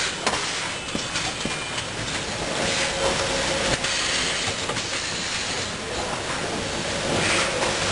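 Automatic packaging line running: the conveyors and the sleeve shrink wrapper make a steady mechanical rattle full of small clicks as a tray is carried through and wrapped in film.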